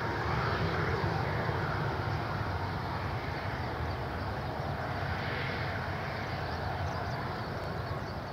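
Boeing 737-800's CFM56-7 jet engines running as the airliner rolls out and slows on the runway just after landing: a steady low jet noise that peaks about a second in and then eases slowly.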